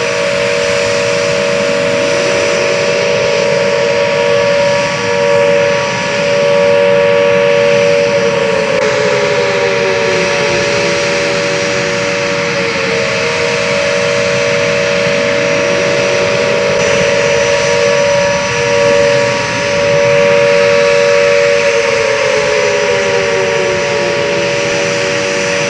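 Jet engine whine: steady high tones over a rushing noise, with tones that sweep up and then down in pitch. The same pattern repeats about every 13 seconds, as a looped track does.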